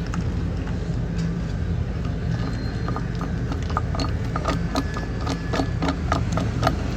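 Worn bearing in the Maytag washer's pump pulley clicking as the pump is worked. The clicks are scattered at first and settle into about three a second in the second half, over a steady low hum. The worn bearing and damaged pulley are the cause of the washer's loud grinding noise on spin.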